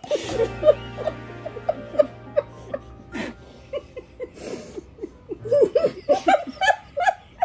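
Women laughing and giggling in short, high-pitched squeals, louder and more frequent in the second half, over background music.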